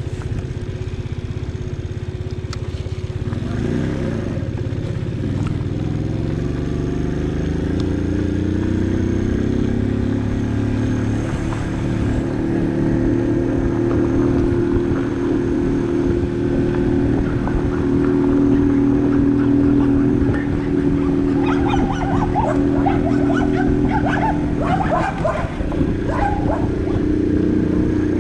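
Barton Volcano 50cc moped engine rising in pitch as it picks up speed over the first several seconds, then running steadily at riding speed. A dog barks repeatedly about three quarters of the way through.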